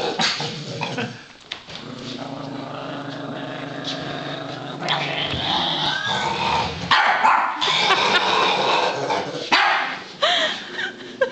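Small long-haired dog growling steadily, then barking in several loud bursts from about five seconds in: an alarmed reaction to a large stuffed teddy bear.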